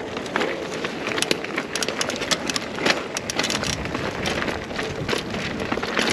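Mountain bike rolling fast over a bare rock slab and loose grit: a steady tyre rumble with frequent clicks and knocks from the bike rattling over the rough rock.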